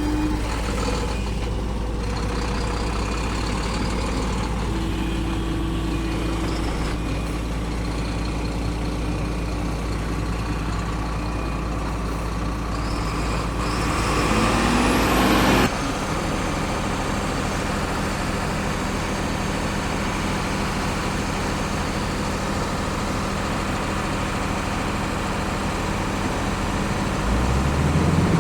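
Heavy diesel truck and machinery engines running steadily. About fourteen seconds in, an engine revs up, rising in pitch, then the sound breaks off abruptly; near the end another engine revs up.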